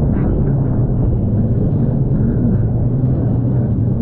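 Jet ski running at speed, a steady loud rumble with the engine's pitch wavering a little, mixed with water rushing and spraying around the hull as it crosses chop and wake.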